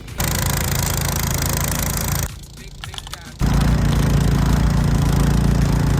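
A snow-clearing machine's engine running hard with a heavy rushing noise, in two loud stretches that start and stop abruptly, separated by a short quieter gap near the middle.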